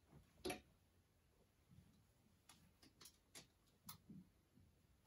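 Clothes hangers clicking on a metal clothes rail as garments are moved along it: one sharper click about half a second in, then a few faint clicks around the middle.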